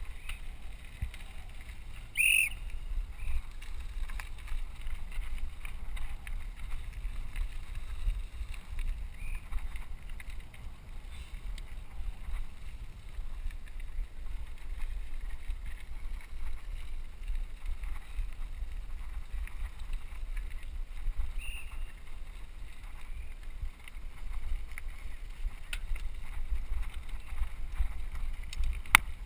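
Rumble and wind buffeting on a helmet-mounted camera as a mountain bike rides over a gravel track. A couple of short high squeaks, and a sharp click near the end.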